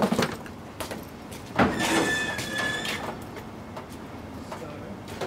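Metal roller door rolling, rattling along with a steady squeal for about a second and a half, starting a little under two seconds in.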